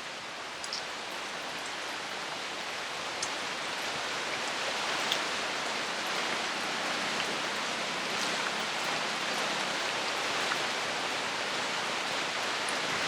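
Steady rainfall, growing gradually louder, with a few sharper single drops ticking.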